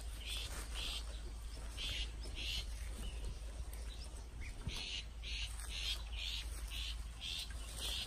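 Adult shrike calling repeatedly near its fledgling: short, harsh calls, about two a second.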